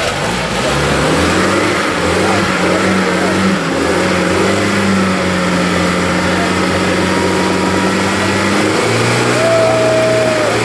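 UAZ off-road 4x4's engine running under load as it pushes through deep mud, its revs stepping down about a second in and up again near the end.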